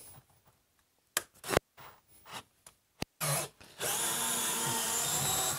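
Bosch 12-volt cordless drill driver on speed two boring into pine with a twist bit: a few light knocks from handling, a short burst of the motor about three seconds in, then steady drilling with an even motor whine through the last two seconds.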